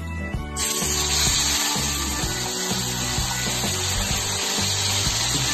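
Whole fish sliding into hot oil in a wok, setting off a steady deep-frying sizzle that starts suddenly about half a second in. Background music plays underneath.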